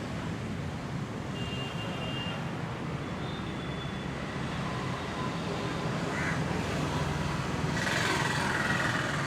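Steady road-traffic rumble with a few short high horn toots, and a louder rush of passing traffic about eight seconds in.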